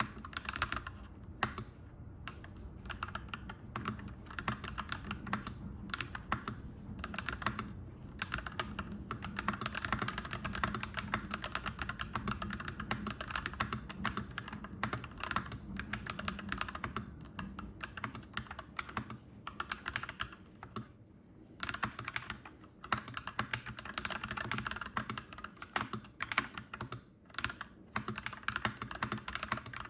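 Clacky mechanical keyboard being typed on steadily in quick runs of keystrokes, with short pauses now and then.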